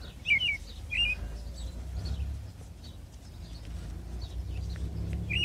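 A few short, high bird chirps, three within the first second and another near the end, over a low rumble.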